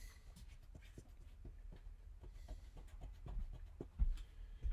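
Short scratching and rubbing strokes on paper from erasing and drawing lines.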